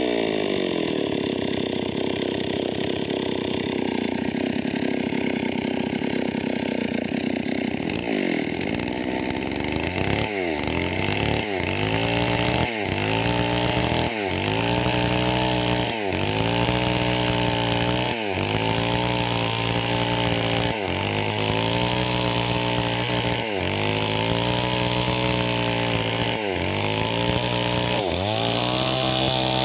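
Stihl MS 381 two-stroke chainsaw ripping lengthwise through a meranti log. It holds a steady high pitch for about the first eight seconds, then its revs dip and climb back every one to three seconds as it works along the cut.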